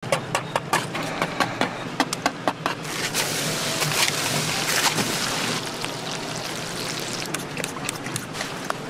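A flat metal blade taps quickly against a cutting board as fish cake paste is spread and shaped, about five taps a second. About three seconds in, the tapping gives way to a steady hiss of hot oil as fish cakes deep-fry.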